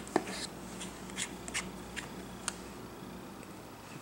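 A precision pentalobe screwdriver ticking against the small screws at the bottom edge of an iPhone 6 as they are unscrewed: a handful of sharp, light metallic clicks spread over the first two and a half seconds, over a faint steady low hum.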